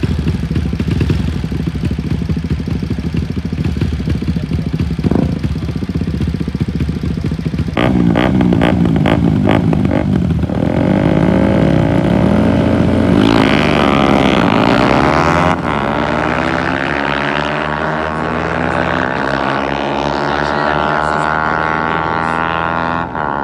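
A drag-racing engine idling, then launching hard about eight seconds in with a run of sharp pops. Its revs sweep up and down, it passes with a falling pitch a little past halfway, and then it pulls away with the revs climbing steadily.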